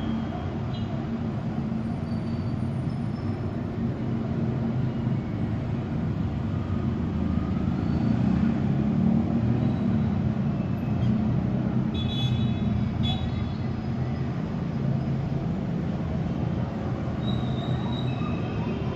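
Steady low rumble of distant city traffic, swelling a little in the middle, with two brief high-pitched sounds about a second apart about two-thirds of the way in.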